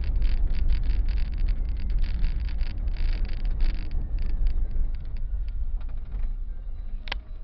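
Car driving along a road, heard inside the cabin: a heavy low rumble of tyres and road with a dense crackle that thins out after about four seconds, and a single click near the end.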